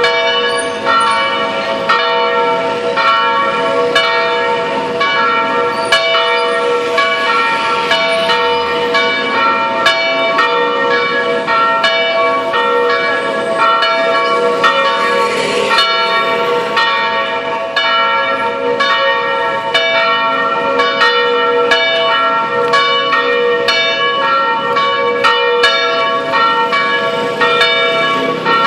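Two electrically swung church bells ringing together in a plenum, the call to Sunday evening Mass. The strokes come about once or twice a second in an uneven, overlapping pattern, and each note rings on into the next.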